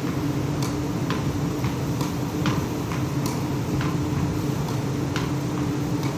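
Solo tennis rally against a ship's steel wall: the sharp pops of the racket striking the ball, the ball hitting the wall and bouncing on the deck, about two a second at irregular spacing. Underneath runs a steady, low droning hum of machinery.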